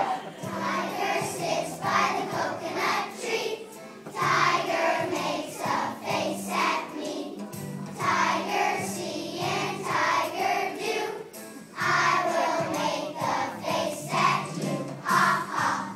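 A choir of first-grade children singing a song together over instrumental accompaniment, in phrases that swell and fall back every few seconds.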